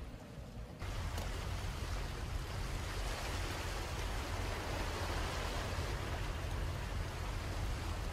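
Steady outdoor rushing noise with a deep low rumble, starting suddenly about a second in.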